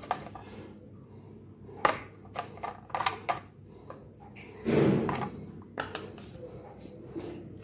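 Mango cubes being placed by hand into glass tumblers: scattered light clicks and taps of fruit and fingers against the glass, with a louder soft thump about five seconds in.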